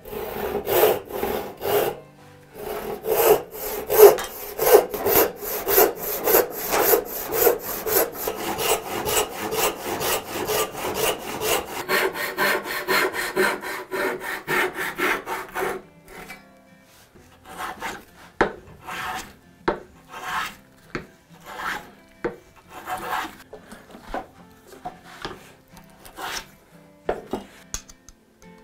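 Hand saws cutting a hardwood board: a handsaw ripping down into the board, then a brass-backed backsaw crosscutting. Quick, steady back-and-forth strokes run for the first half, then slower, separate strokes with short gaps between them until near the end.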